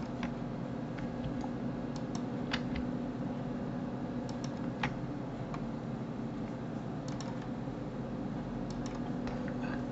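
Scattered, irregular clicks of a computer mouse button and keyboard keys, over a steady low hum.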